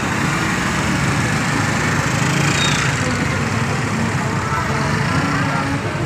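Small motor scooters running past at low speed in a steady engine drone, with one passing close about halfway through.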